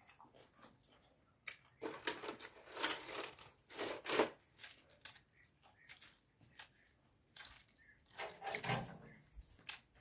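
Kitchen knife cutting into pineapple and the tough rind tearing away from the fruit, in two spells of rasping strokes: one from about a second and a half in to about four seconds, another near the end.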